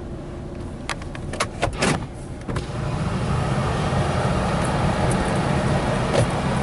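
A few sharp clicks inside a car, then a steady rushing noise that sets in about two and a half seconds in and stays loud.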